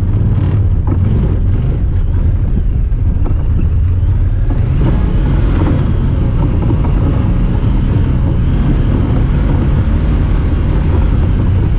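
Honda Talon 1000R side-by-side driving, its parallel-twin engine running steadily with no big revs or pauses.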